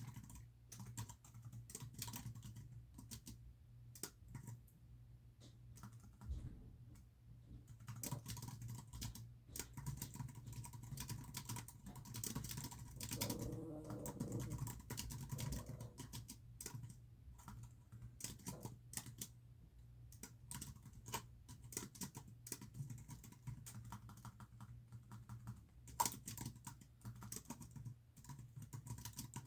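Computer keyboard typing: irregular runs of keystroke clicks over a steady low hum, with a brief wavering pitched sound near the middle.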